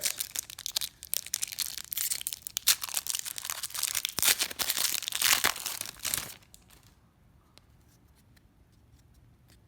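A trading card pack wrapper being torn open and crinkled by hand, a dense run of crackling tears lasting about six seconds, after which it goes quiet.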